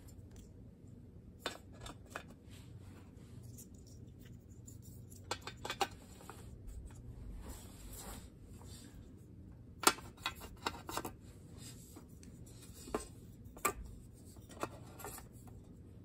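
Scattered small clicks and taps of Neutrik powerCON panel connectors being handled and set into the cut-out holes of a metal rack power panel, with light rubbing between; the sharpest click comes about ten seconds in.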